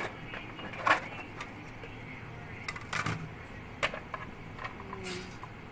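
Cardboard packaging being pulled out of a plastic water-filter pitcher: a handful of short rustles and knocks, the sharpest about a second in.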